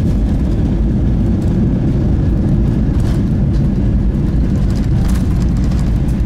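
Jet airliner rolling fast along the runway, heard from inside the cabin: a loud, steady low rumble of engines and wheels, with a couple of brief rattles.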